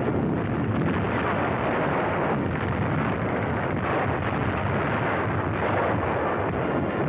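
Battle sound effects of gunfire and exploding shells, running together into a steady, dense roar with no single blast standing out.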